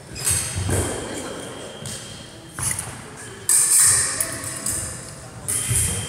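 Foil blades clashing and scraping against each other in parry-and-attack exchanges, several separate bursts, with footsteps thudding on a wooden floor.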